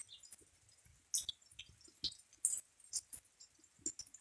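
Light, gentle rain with drops dripping close by, heard as scattered, irregular soft ticks and taps.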